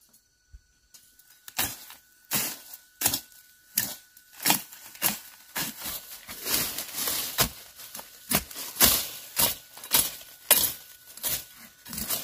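Repeated sharp knocks with short scrapes between them, roughly two a second, starting about a second in: hand-tool work on the building job.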